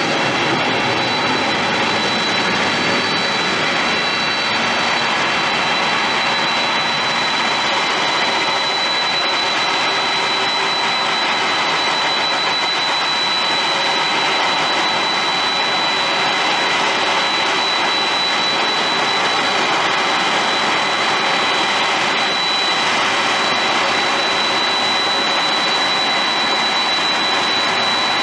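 Jet engines of a Boeing 767-300ER (General Electric CF6 turbofans) running with a steady rush and a constant high whine.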